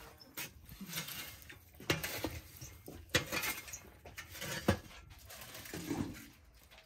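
A wooden poker raking through glowing embers in a clay tandoor, scraping with a crackling hiss, then the clatter of foil-lined trays set on a wooden rack. Three sharp knocks stand out, about a second and a half apart.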